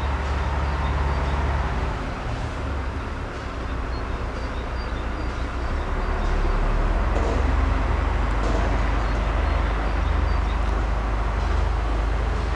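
Freight train hauled by an FS E655 electric locomotive rolling past, its covered wagons giving a steady rumble of wheels on the track.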